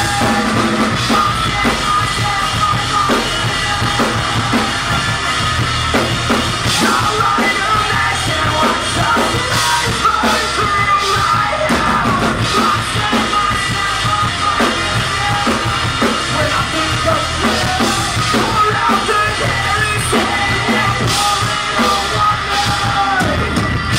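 Live rock band playing an instrumental passage: loud distorted guitars, bass and a driving drum kit with bass drum and snare hits, recorded from the club floor.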